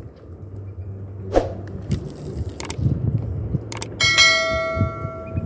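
A bell chime sound effect for a subscribe-button animation rings about four seconds in, a single struck ring that fades over about a second and a half. Before it come a few sharp clicks.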